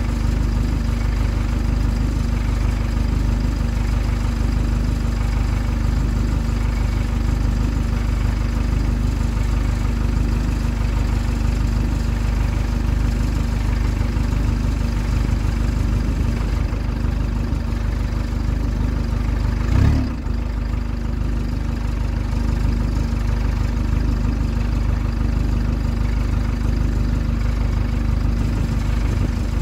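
A single-deck bus's diesel engine idling steadily at the rear, with a constant low rumble and hum. About two-thirds of the way through there is one brief low thump.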